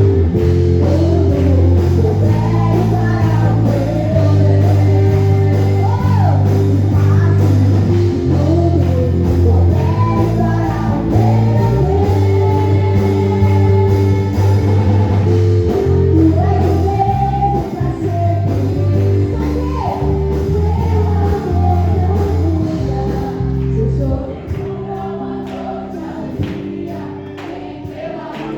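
Live gospel praise music: singers over a band with a strong bass line, the band thinning out in the last few seconds.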